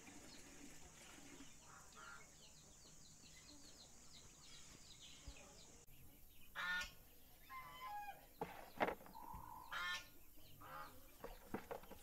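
Geese honking: several loud, short calls in the second half, following faint, rapid high chirping.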